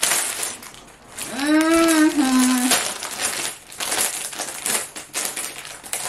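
Clear plastic packaging bag crinkling and rustling as it is handled and opened, in quick irregular crackles. A short hummed voice sound is heard about a second and a half in.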